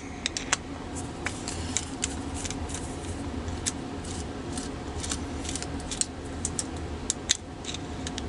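Small metal clicks and scrapes from a Phillips screwdriver and the parts of a Kryptonite padlock being taken apart by hand, over a steady low hum.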